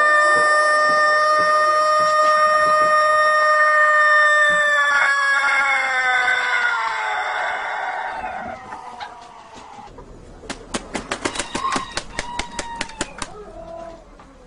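Rooster crowing: the end of one long held note that slides down in pitch and trails off about eight seconds in. About ten seconds in comes a quick run of sharp clicks lasting about three seconds.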